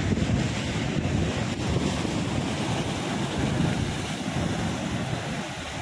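Wind buffeting the microphone over waves washing and breaking against the rocks of a sea breakwater: a steady, low rumbling rush with no break.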